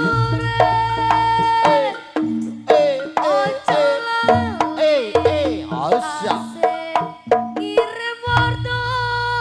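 Live jaranan band music accompanying the barong dance: hand drums over long held tones, with a melodic line that bends and glides in pitch in the middle, and a deep pulsing bass near the start and again near the end.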